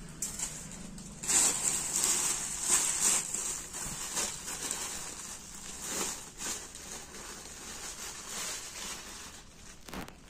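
Crinkling of clear plastic packaging and rustling of cloth as dupattas are handled and unwrapped. It is loudest in the first few seconds, with scattered sharp crackles, then softer.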